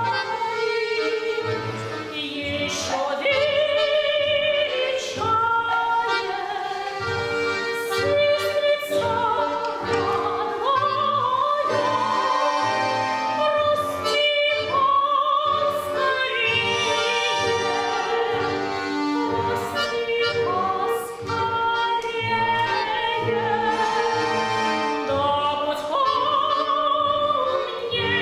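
A woman soloist singing in a classical, operatic style with vibrato, accompanied by an orchestra of bayans and accordions playing sustained chords.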